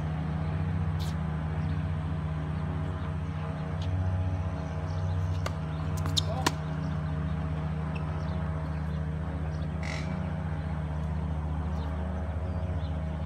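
Tennis rally: a ball struck by rackets and bouncing on the hard court, with two sharp pops close together about six seconds in, over a steady low hum.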